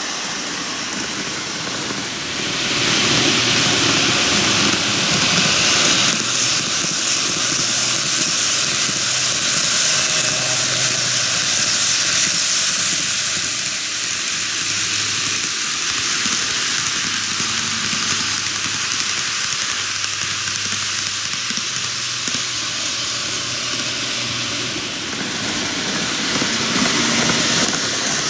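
N-gauge model train running on TOMIX canted track: a steady hiss of wheels on rail with a low motor hum underneath, growing louder about two and a half seconds in.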